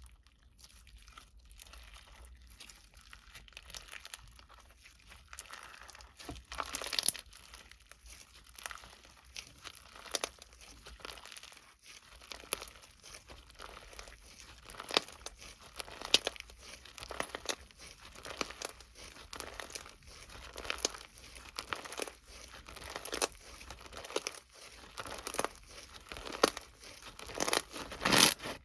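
Irregular crinkling and crackling handling noises, sparse and faint at first and then quicker and louder from about six seconds in.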